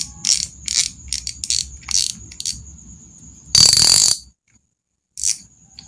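Kenji spinning reel's round-plate spool clicker, freshly fitted with a wire spring, ticking as the spool is turned by hand. The clicks come at about four or five a second and slow down. Then comes a fast, loud rattle of clicks for about half a second as the spool spins quickly.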